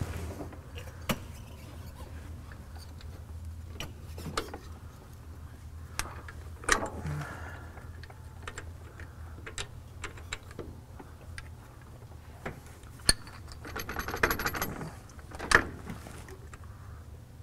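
Scattered metallic clicks and clinks of hand tools and hardware on a steel track bar under a pickup as it is fitted, with a quick run of rapid clicks near the end, over a steady low hum.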